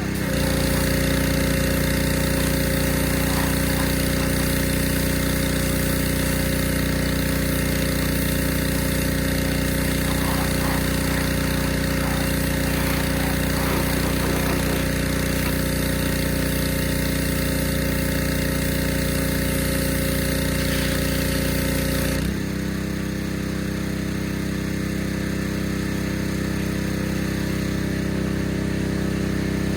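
Pressure washer running steadily with its spray hissing, the spray cutting off about 22 seconds in and the motor note changing as it does.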